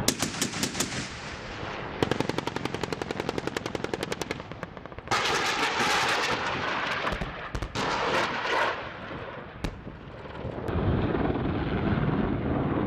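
Bursts of 20 mm cannon fire from an AH-1Z Viper's M197 gatling gun, a rapid even run of shots at about a dozen a second. It is followed by a loud rushing blast of several seconds as a rocket streaks into the range, then a few more short bursts. In the last couple of seconds the helicopter's steady rotor and engine noise takes over.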